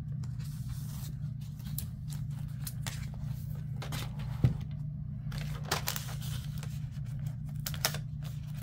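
Paper sticker sheets being handled and slid over planner pages: scattered light rustles and scrapes, with one sharper tap about four and a half seconds in, over a steady low hum.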